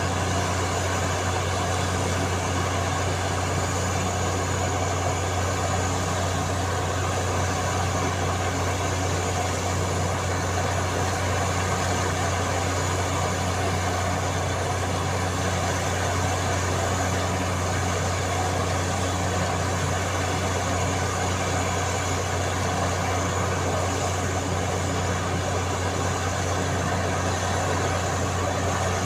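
Borewell drilling rig running steadily, a constant low engine drone with no change in pitch or level.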